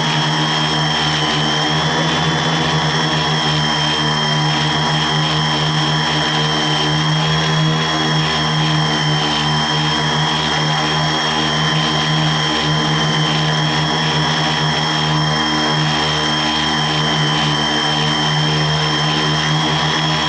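Electric Xcottero quadcopter flying, its motors and propellers giving a steady buzzing hum with high, even whining tones over it.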